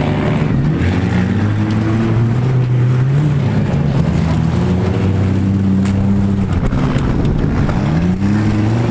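Several compact-car engines running and revving in a demolition derby heat, their pitches rising and falling over one another.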